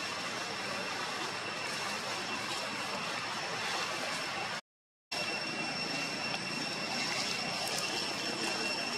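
Steady outdoor ambience: an even hiss under a steady high-pitched insect drone. The sound cuts out completely for about half a second midway, then resumes unchanged.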